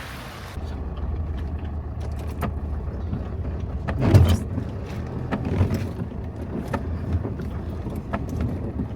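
A motor vehicle on the move: a steady low rumble with frequent small knocks and rattles, loudest about four seconds in.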